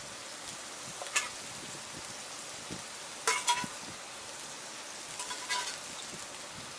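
Food sizzling steadily in a Turk forged-iron frying pan over a campfire. A metal cooking tool clinks against the pan about a second in, again with a short metallic ring around three and a half seconds in, and once more near five and a half seconds.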